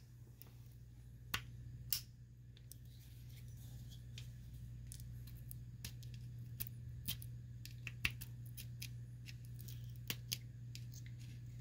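Scattered light clicks and taps of small metal carburetor parts and a screwdriver being handled in a bowl, over a steady low hum.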